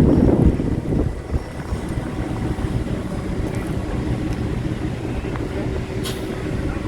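Heavy equipment engine running steadily with a low rumble, louder in the first second, with wind noise on the microphone.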